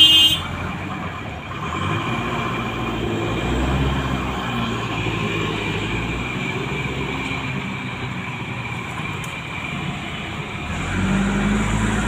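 JCB backhoe loader's diesel engine running under load as it digs, its note rising and falling. A brief loud tone sounds right at the start, and the engine works harder about eleven seconds in.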